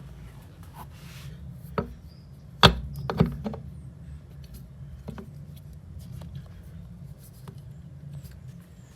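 A new drum bearing being knocked into a Samsung front-load washer's tub through a piece of wood: four sharp knocks in under two seconds, starting about two seconds in, the third the loudest. Faint light clicks follow.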